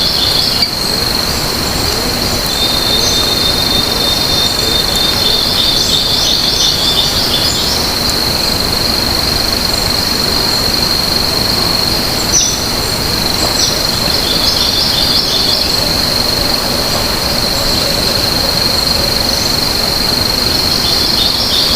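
A steady, high-pitched insect drone runs without a break, with bird calls repeatedly chirping in short clusters over it.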